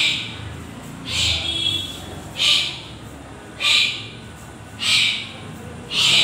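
Karate students' sharp hissing exhalations, one forced breath with each technique of the kata, coming evenly about every 1.2 seconds.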